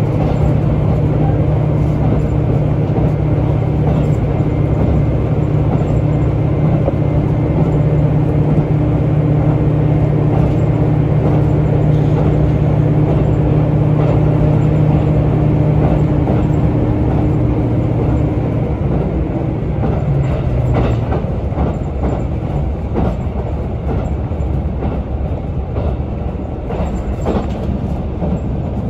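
Inside a KiHa 75 diesel railcar on the move. The diesel engine drones steadily, then a little over two-thirds of the way through its note steps down and fades as power comes off. What remains is the rumble of wheels on rail with scattered clacks over the rail joints.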